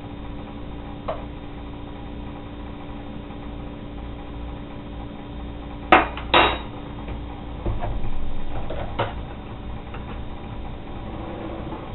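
Metal pot and kitchen items being handled on the stove top: two sharp clanks about six seconds in, then a few lighter knocks and some shuffling, over a steady low hum.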